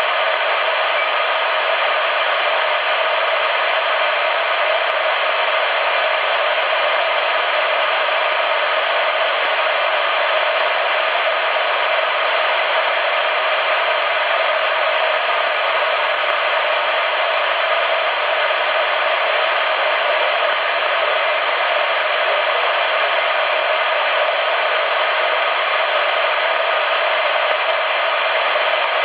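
Steady hiss of static from a CRT SS 9900 CB transceiver on 27.555 MHz upper sideband, with no station coming through. The hiss is band-limited, even and unbroken.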